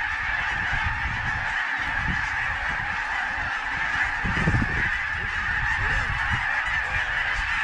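A huge flock of Canada geese and snow geese honking as it circles low overhead: a dense, unbroken din of countless overlapping calls.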